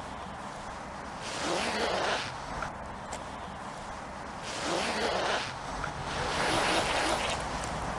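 Metal jacket zip being zipped: the slider rasps along the metal teeth in three runs, the last one the longest.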